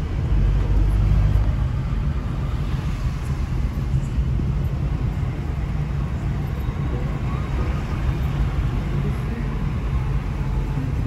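Steady engine and tyre noise of a car being driven at speed, heard from inside the cabin as a low, even rumble.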